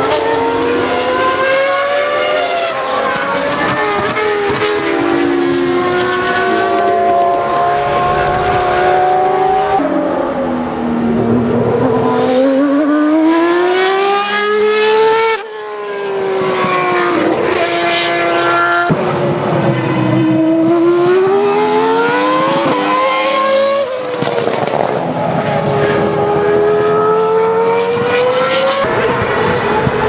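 Formula One race cars' high-revving engines running hard on a circuit. The pitch rises and falls again and again as the cars accelerate, shift gear and slow for corners, with an abrupt drop about halfway through.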